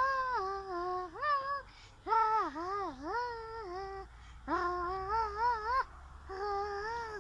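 A puppeteer's high put-on character voice making wordless sounds in five short phrases that waver and glide up and down, with brief pauses between them.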